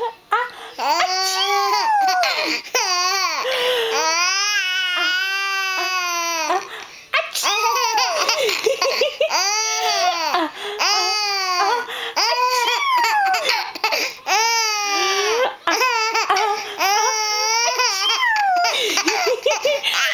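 Baby laughing in repeated high-pitched bursts, with one long, wavering held laugh about four seconds in.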